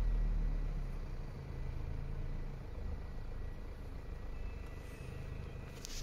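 Car engine idling, a steady low hum heard from inside the cabin, with a short click near the end.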